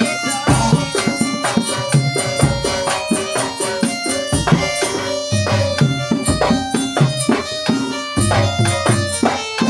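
Traditional Javanese-style folk music for a masked or horse dance: hand drums play a fast, steady pattern under a held melody line.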